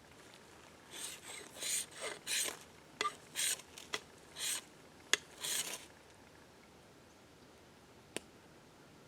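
A fire starter struck against bark tinder in about eight quick rasping scrapes over some five seconds, trying to light it. There is a sharp click about five seconds in and a single tick near the end.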